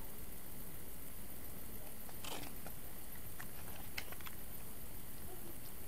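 A CD booklet being handled, with a few soft paper rustles and clicks about two seconds in and again around four seconds in, over a steady hiss.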